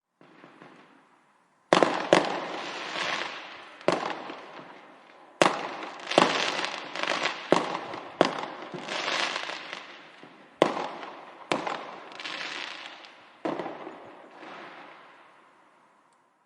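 Fireworks going off: about ten sharp bangs, each followed by a crackling spray that fades away, some coming close together.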